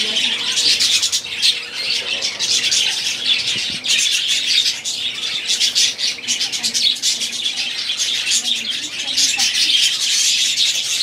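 A flock of budgerigars chattering, many birds warbling and chirping at once in a dense, continuous stream.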